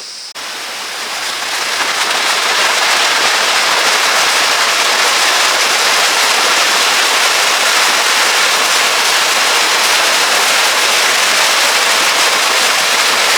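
Rushing water close to the microphone: a continuous loud wash of a stream cascading over rocks, fading up over the first couple of seconds, then steady.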